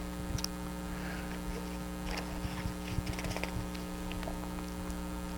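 Steady electrical mains hum from the sound system, with faint scattered ticks and rustles.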